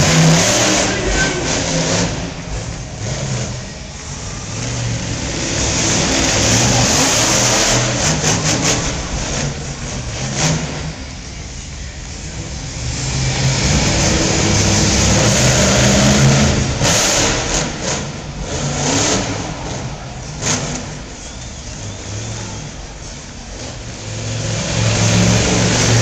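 Monster truck's supercharged V8 engine revving hard and easing off in repeated waves as the truck drives and spins on the dirt.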